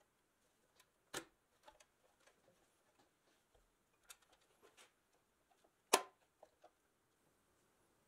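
Pressed-steel toy fire truck body and chassis clicking and knocking against each other as they are handled and turned over, with two louder knocks, about a second in and about six seconds in.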